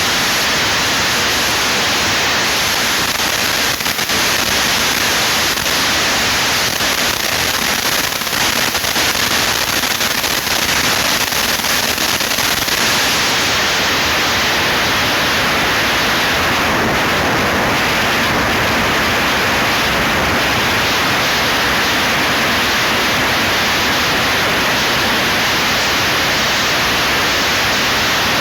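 Loud, steady hiss like static, with faint crackles in roughly the first half.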